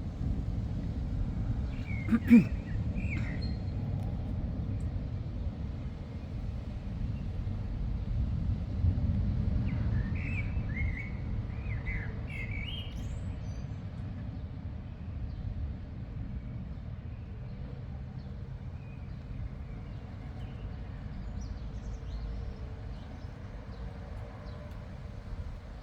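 A few short bird chirps, a cluster about two seconds in and another around ten to thirteen seconds, over a steady low rumble. A single sharp knock about two seconds in is the loudest sound.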